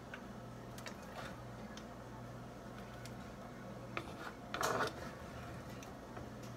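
A plastic serving spoon scraping and tapping in a skillet as fried rice is scooped out into a disposable bowl, in scattered light clicks. A louder scrape comes a little after four and a half seconds in. A low steady hum runs underneath.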